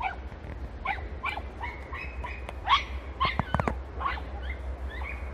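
Five-month-old podenco hound pups giving tongue: many short, high yelps and yips in quick succession, several voices overlapping, the cry of hounds working a scent trail.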